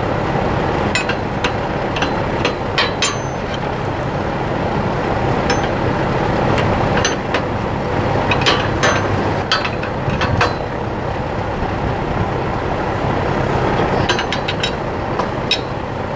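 Open-end steel wrench clinking against a bolt and nut as it is turned on the tine-bar bearing of a Massey Ferguson Model 25 hay rake. The clicks come in irregular bunches over a steady background rumble.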